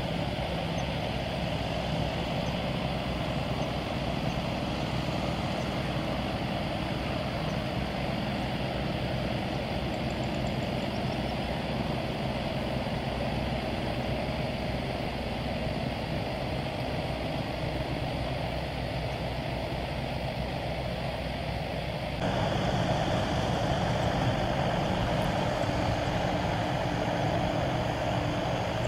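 Boeing 747-400 freighter's four jet engines running at taxi power as it rolls past, a steady engine noise. It gets suddenly louder about two-thirds of the way in.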